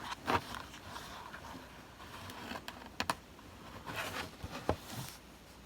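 A Blu-ray case in its slipcover being handled: scattered light taps and clicks, with two sharp clicks close together about three seconds in.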